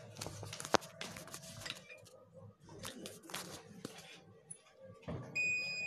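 Rustling and scraping of things being handled on a workbench, with one sharp click about three-quarters of a second in. Near the end a steady high-pitched electronic beep starts.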